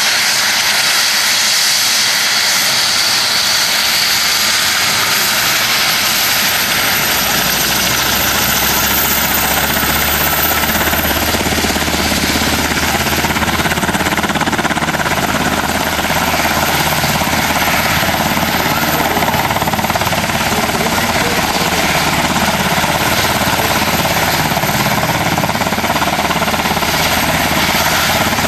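UH-60 Black Hawk helicopter's twin turboshaft engines running on the ground, with a steady high-pitched turbine whine over a loud, even rush. A deeper rumble joins about a quarter of the way through.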